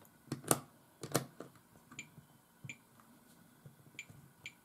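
A multimeter and its test leads being handled: a few sharp knocks in the first second and a half, then four light clicks spread over the rest.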